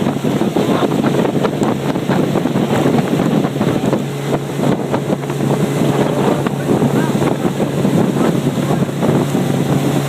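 Motorboat engine running steadily while underway, with heavy wind buffeting the microphone. The steady engine hum comes through more clearly about four seconds in.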